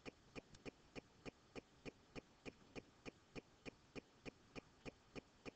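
Near silence with a faint, perfectly regular ticking, about three short ticks a second.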